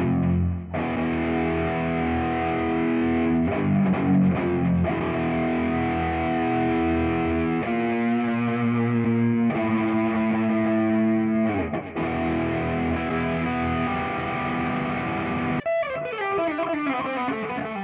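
Samick NSHG 100 FR electric guitar played through distortion effects, ringing out held chords that change every few seconds. Near the end the pitch slides down in a long dive.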